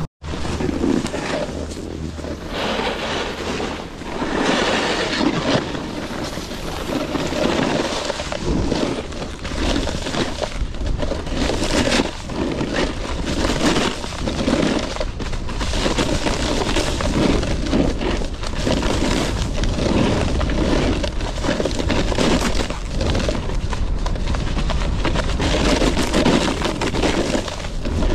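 Snowboard edges scraping and chattering over firm snow, with a swell of scraping every second or two as the board turns.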